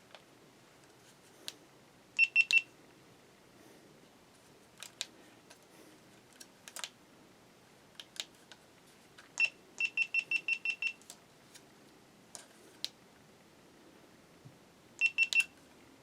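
Short high electronic beeps from a camcorder being operated: a quick group of three, a longer run of about eight, then three more near the end, with small clicks of handling and button presses in between.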